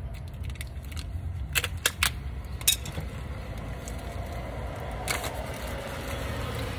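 New brake pads being taken out of their box by hand: a few sharp clicks and rustles of the pads and packaging, over a steady low background rumble.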